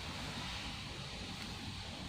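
Steady background noise: a low rumble with a light hiss, unchanging, with no distinct knocks or clicks.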